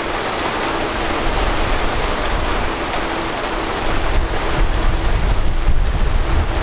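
Heavy thunderstorm rain pouring down in a steady hiss. Wind rumbles on the microphone and turns gustier about four seconds in.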